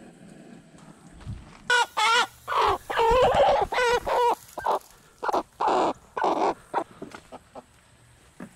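Cornish Cross meat chicken squawking: a run of loud, wavering calls starting about two seconds in and dying away after about seven seconds, as the bird is handled in a kill cone.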